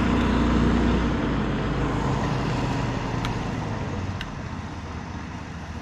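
A passing boat's motor running with a steady hum, fading away as the boat moves off down the river.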